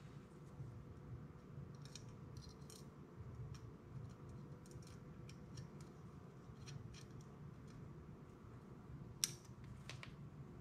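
Faint small metallic clicks and scrapes of tiny grub screws being fitted with an Allen key into a machined camera-mount cage, with one sharper click about nine seconds in.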